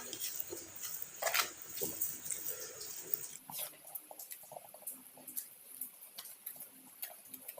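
Close-up eating sounds: wet chewing and mouth smacks, with irregular small clicks, a couple of them sharper near the start.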